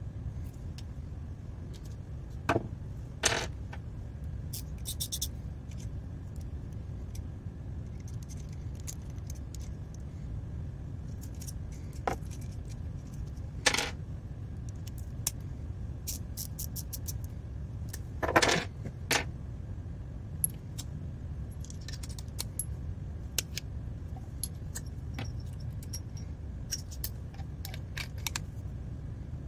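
Small steel screwdriver bits and bit holders clicking and clinking as they are handled and set down on a wooden desk: scattered light ticks with a few louder clacks, over a steady low hum.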